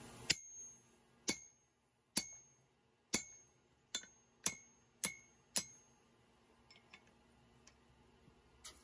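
Hand hammer striking a hot steel hammer blank on an anvil: eight sharp blows with a short high ring, about a second apart at first, then quicker. A few faint clinks of tools follow.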